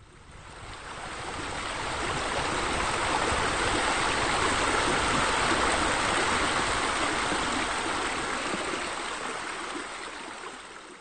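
Steady rush of water spilling over a spa's edge into a pool. It fades in over the first two seconds and fades out near the end.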